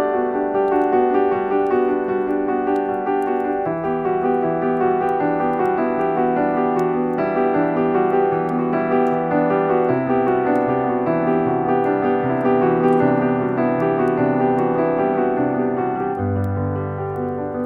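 Slow, gentle romantic music led by piano, with sustained chords and a bass note that shifts every few seconds.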